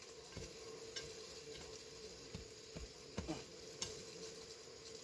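Soil and leaf litter being scraped and handled while a plant is set into the ground, a low crackly rustling with a few soft knocks.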